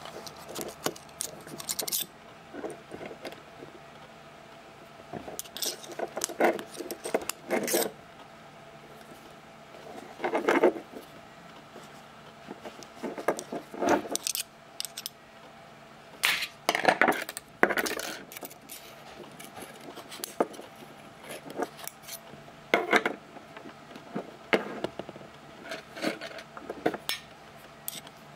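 A small brass lighter being handled and worked on: irregular metallic clicks, taps and scrapes as its parts and a stick knock against it, in uneven clusters with a few louder clatters.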